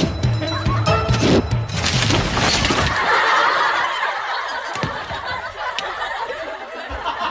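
Dramatic music with a pounding beat and a run of sharp impacts as a volley of blades strikes a paper-screen wall, then studio audience laughter from about three seconds in.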